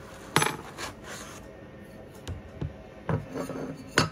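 Handling noise as pieces are lifted out of a foam packaging insert: a sharp click, then rustling and a few soft knocks. Near the end comes a sharp knock as the model's metal display stand is set down on the table.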